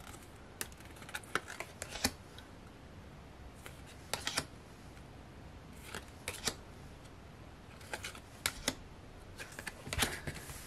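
Glossy photocards being flipped through by hand and set down on a table: light, scattered clicks and taps of card edges, with a few quick clusters of them.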